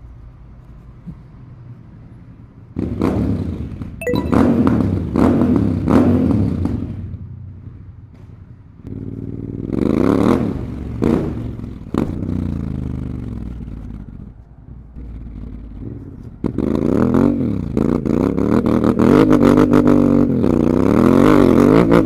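Honda Africa Twin 1100's parallel-twin engine, running low at first, then accelerating hard about three seconds in, with its pitch climbing and breaking at each upshift. It eases off, pulls again around ten seconds, falls away, and from about sixteen seconds revs up loudly through several more gearshifts.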